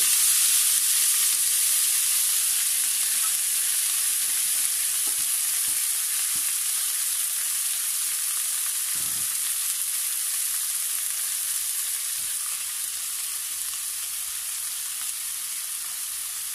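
Chopped amaranth (cheera) leaves sizzling in hot oil with mustard seeds in a wok: a steady frying hiss that is loudest as the leaves go in and slowly dies down, with a few faint knocks.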